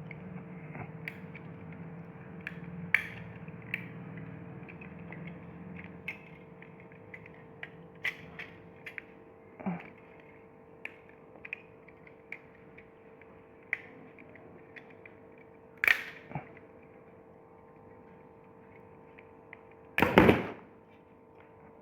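Small clicks and taps of plastic camera parts being handled and pried apart during the disassembly of a Kodak KB10 compact film camera, with a sharper click about sixteen seconds in and a louder clatter near the end. A faint steady hum runs underneath.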